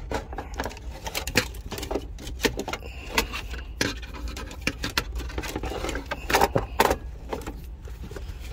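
Hands fumbling among wiring and plastic air lines behind a truck's dash: irregular clicks, taps and rustles, with a steady low rumble underneath.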